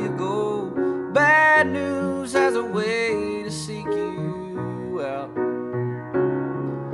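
Music: a song with a singing voice over piano and other instruments.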